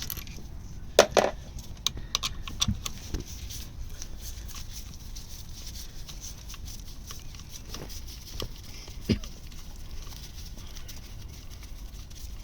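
Hand tools clicking and tapping on the Honda ST1100 engine's clutch cover as its screws are worked loose. The sharp clicks are scattered, the loudest about a second in, a cluster of them a second later and another near the end.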